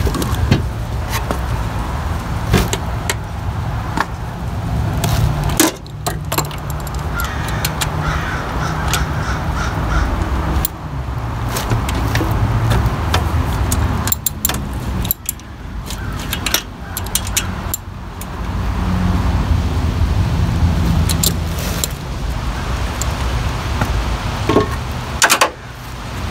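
Scattered metallic clicks and knocks of hand tools working the timing belt tensioner and its bolt, over a steady low hum.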